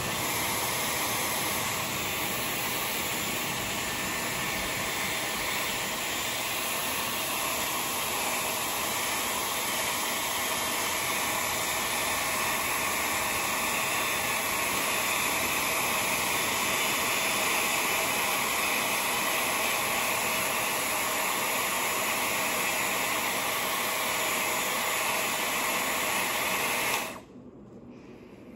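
Dyson Airwrap running with a curling barrel attached: a steady rush of blown air that cuts off suddenly about 27 seconds in.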